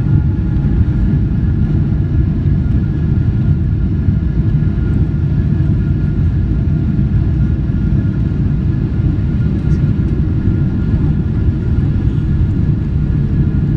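Steady low rumble inside the cabin of a Boeing 777-300ER on its landing rollout, with its spoilers raised, and a faint steady whine over it.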